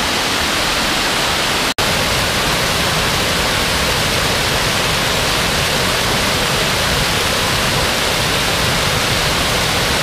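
Waterfall pouring over rock close by: a loud, steady rush of falling water that cuts out for an instant just under two seconds in.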